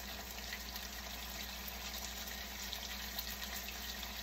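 Steaks frying in hot oil in a pan, sizzling with a steady hiss and scattered crackles.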